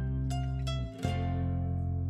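Background music: plucked notes over a strong bass, with a new chord struck about a second in.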